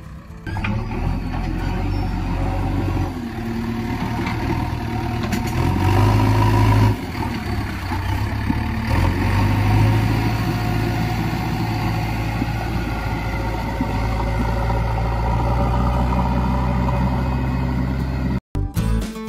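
Diesel engine of a JCB backhoe loader running as the machine drives over a rough field track. It is a steady low hum that swells twice, about six and ten seconds in, as the engine is revved.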